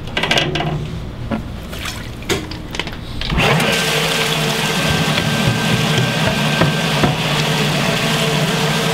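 Liberty Omnivore 2 HP submersible grinder pump running in an open tank of water, grinding an adult diaper. There is a steady motor hum with a few knocks at first; about three and a half seconds in, it jumps to a louder, steady rush of churning water over the hum.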